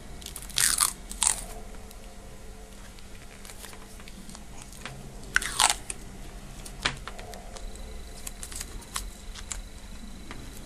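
Insulating tape being pulled off its roll and wound around a spliced power cable: short crackly tearing pulls, twice near the start and twice more about five and a half seconds in, with a single small click a second later.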